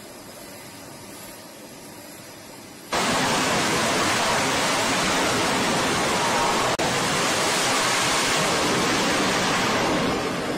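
A quieter steady hiss, then about three seconds in a sudden jump to loud, steady jet engine noise from an F/A-18 fighter at full power on the carrier's steam catapult. It eases near the end as the jet is launched.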